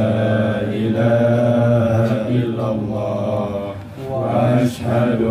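A young man's voice chanting Quran verses in Arabic into a microphone, in long, drawn-out melodic phrases with short breaks for breath about two and four seconds in.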